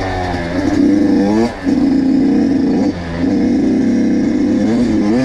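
Kawasaki KX85 two-stroke single-cylinder dirt bike engine revving hard, its pitch climbing, dipping briefly twice, then held high and climbing again near the end.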